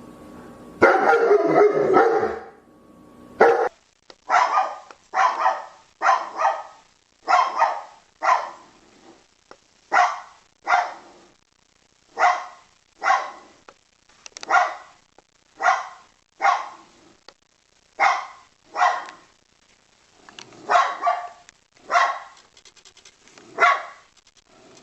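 A dog barking: a dense, loud stretch of barking for about the first two and a half seconds, then separate short barks roughly once a second, often in quick pairs.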